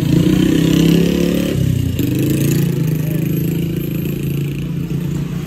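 Motorcycle engine running, its note shifting about a second and a half in, with a single click about two seconds in.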